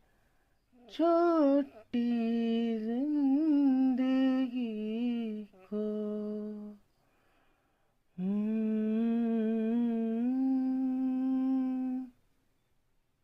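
A single voice hums a slow, wordless melody in a few phrases and ends on a long held note. No instruments are heard with it.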